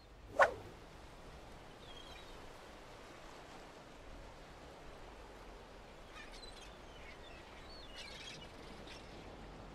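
A short, sharp sound-effect hit about half a second in, then a faint seaside ambience: a steady rush of wind and sea with a few short gull cries.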